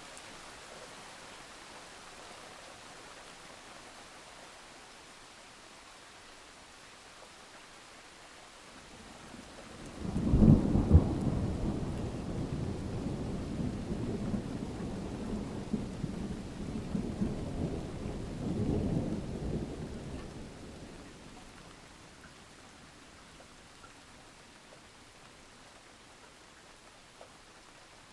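Steady rain with a thunderclap: a sudden crack about ten seconds in, then about ten seconds of rolling low rumble that swells again before dying away, leaving the rain.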